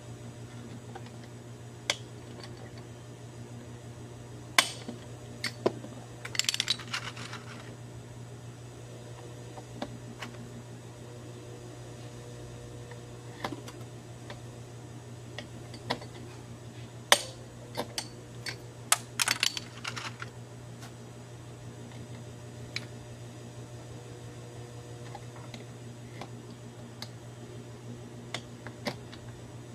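Scattered sharp clicks and short rattles of a hand tool working on plastic and metal body parts at a car's front wheel arch, with brief clusters of rattling about six and nineteen seconds in. A steady low hum runs underneath.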